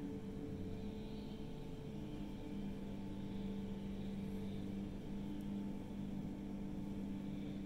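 Steady low mechanical hum made of a few held droning tones, with a deeper tone growing stronger about two seconds in.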